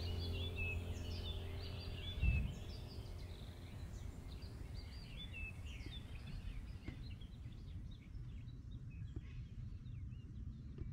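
Small birds chirping and twittering outdoors, many short calls busiest in the first half and thinning out after about seven seconds. A low hum in the first two seconds ends in a brief low thump.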